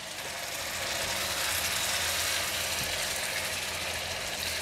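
Sauce bubbling and sizzling in a nonstick wok, a steady crackling hiss, with a silicone spatula stirring it and a low hum beneath.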